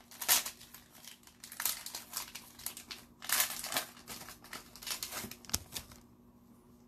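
Wrapper of an Upper Deck Series 2 hockey card pack being torn open and crinkled by hand, with uneven rustling that stops about a second before the end.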